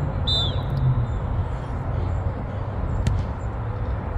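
Steady low outdoor rumble with a brief high whistle blast about a third of a second in, a referee's whistle, and a single sharp knock about three seconds in.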